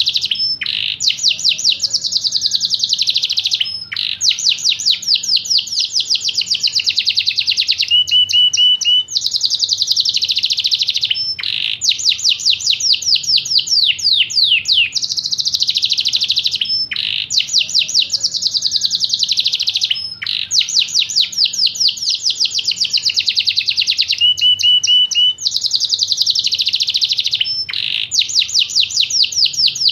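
Yorkshire canary singing a long, loud song of rapid rolling trills and quick falling notes, broken by short pauses every few seconds. The same song phrases come round again about every 16 seconds, as in a looped lure recording used to coax a silent canary into song.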